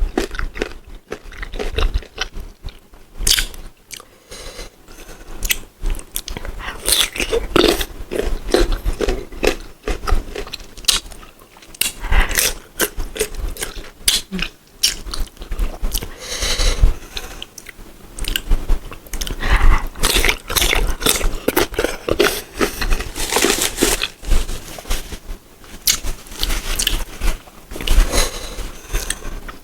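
Close-up crunching and chewing of sour green mango, with many sharp bites and crunches in quick succession as the firm, unripe fruit is bitten and chewed.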